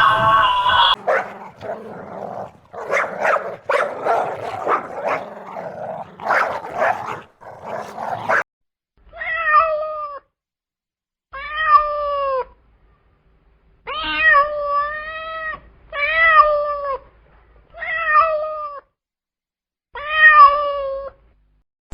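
Domestic cat meowing six times, each call about a second long and dropping in pitch at the end. Before the meows comes a rougher, noisy stretch of about eight seconds with clicks and scuffles.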